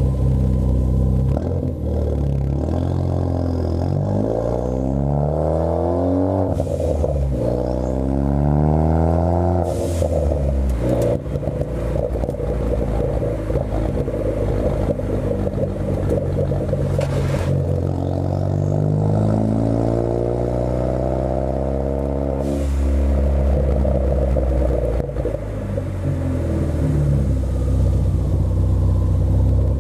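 Ford Focus ST's turbocharged 2.0-litre four-cylinder through a Roush cat-back exhaust, pulled through two gears with the pitch climbing and dropping at each shift, then cruising steadily before climbing again. A few brief sharp noises stand out near the gear changes.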